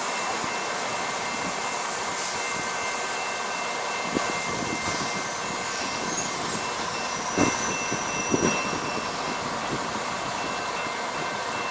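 Push-pull passenger train hauled by a Euro 4000 diesel-electric locomotive rolling past over the rails: a steady rumble of wheels on track, with a handful of sharp clacks as wheels cross rail joints.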